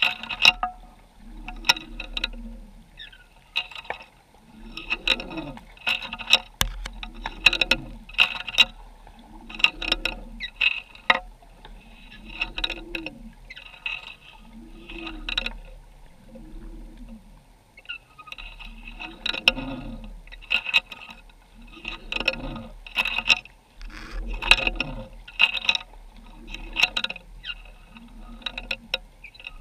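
Underwater noise picked up through a GoPro's housing on the seabed: a regular pulsing about once every one and a quarter seconds, each pulse a low swell with crackling clicks, pausing briefly about halfway through.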